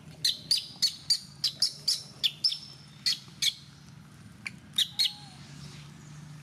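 A quick run of short, sharp, high-pitched chirping calls, about three a second, breaking off after three or four seconds, then a few more just before five seconds in. A faint steady low hum runs underneath.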